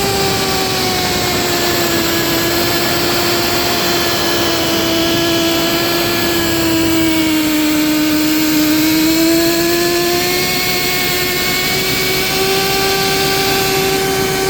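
Portable in-situ crankpin grinding machine running steadily, its motor giving a loud, even whine. The pitch sags slowly to a low point about eight seconds in, as if under heavier load, then climbs back.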